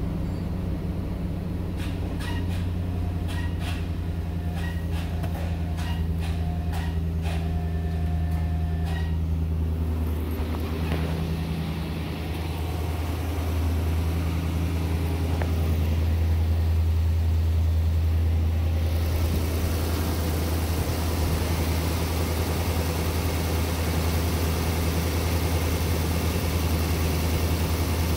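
2005 Nissan Armada's 5.6-litre V8 idling steadily. For about the first nine seconds, a short electronic warning chime repeats roughly once a second.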